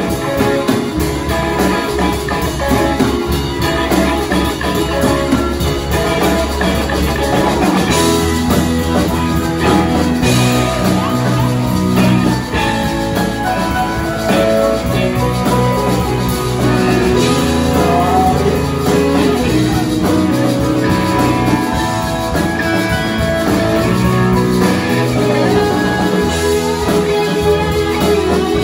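Live rock band playing electric guitars and drum kit, loud and continuous.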